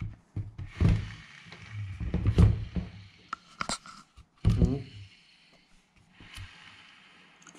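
Hand tools and parts being handled while fitting a radiator fan: a few knocks and thunks, then a sharp metallic click about halfway through. A short voice-like sound follows just after the click.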